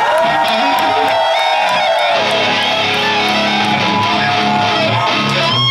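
Electric guitar and bass played through amplifiers: long held, ringing notes with some bends, and low bass notes coming in about two seconds in.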